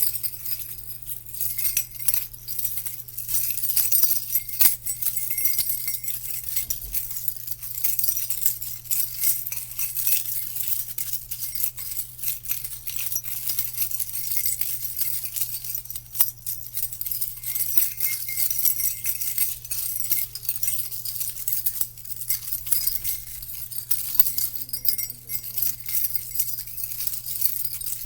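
Jingle-bell sound effect: small bells jingling continuously in a fast, shimmering rattle, over a steady low hum.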